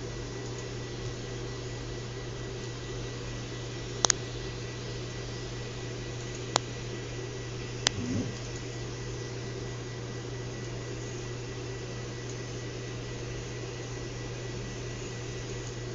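Computer mouse clicks over a steady hum: a double click about four seconds in, then single clicks near six and a half and eight seconds, followed by a short low murmur.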